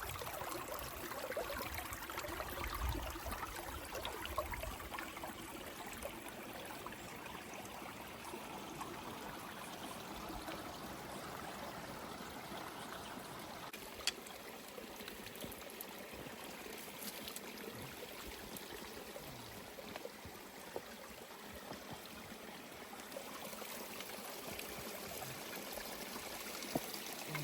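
A stream running steadily, an even rush of water.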